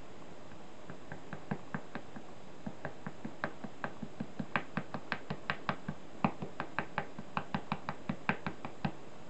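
Rapid light tapping of a sumi-e brush tip dabbing paint onto a stiff shikishi board, about four taps a second, uneven in strength. The taps start faint about a second in, grow louder through the middle and stop just before the end.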